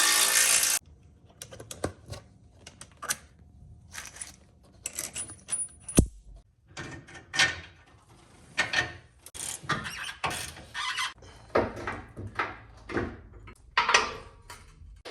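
A power tool runs briefly and cuts off suddenly under a second in. Then come scattered clinks, rattles and knocks of metal tools and suspension parts being handled, with one sharp knock about six seconds in.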